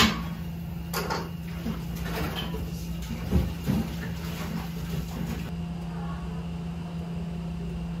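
Restaurant room tone: a steady low hum with a few short knocks and clinks, the sharpest right at the start and a pair about three and a half seconds in.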